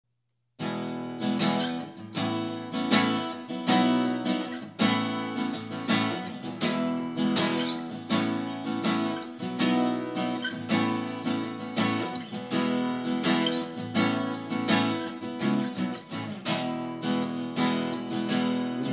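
Solo acoustic guitar strummed, playing a song's instrumental intro; it starts about half a second in.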